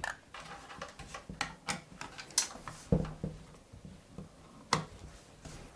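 Handling noise of a CPU liquid cooler being positioned in a PC case: scattered light clicks and knocks, with a dull thump about three seconds in and a sharp click near the end.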